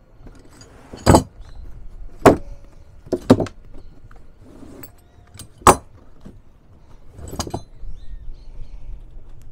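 Metal hand tools (hex keys, screwdrivers, spanners) clinking and rattling in a canvas tool roll as it is unrolled and handled, about six sharp clinks spread over several seconds.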